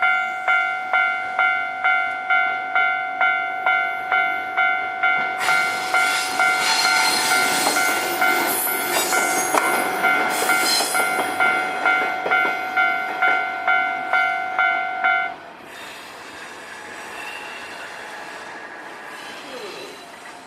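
Japanese railway level-crossing alarm ringing its repeated electronic ding about twice a second. A train passes over the crossing from about five seconds in for some six seconds, with high squealing on top of its rumble. The alarm cuts off about fifteen seconds in.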